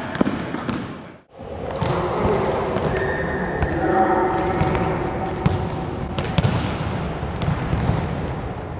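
A basketball bouncing on a gym floor during play, with players' voices in the hall. The sound cuts out for a moment about a second in.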